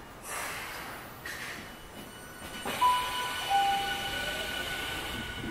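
Tokyu 5050 series electric train running, a steady rail rumble. About three seconds in, two brief tones fall in pitch, one after the other.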